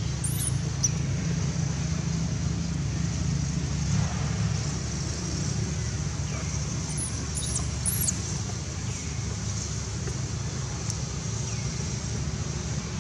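Steady low outdoor rumble with a few brief, very high-pitched chirps, once near the start and a few around seven to eight seconds in.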